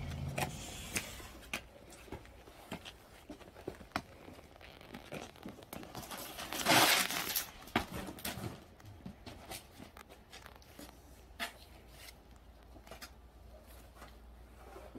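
Footsteps and small clicks on a concrete step. About seven seconds in comes a short, loud scraping rush: an aluminium-framed sliding glass door being slid open.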